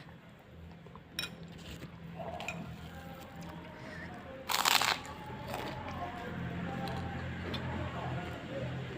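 Close-up eating sounds: chewing and small crackles, with one loud crunchy bite of food about four and a half seconds in, over a steady low hum.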